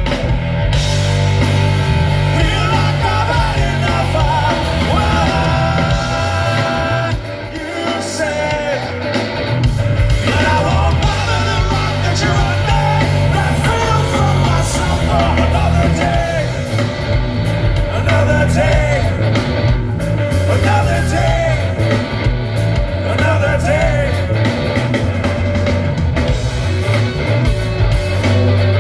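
Live rock band playing loud, with electric guitars, bass guitar and drums under a sung lead vocal. The heavy low end drops out briefly about seven seconds in, then the full band comes back in.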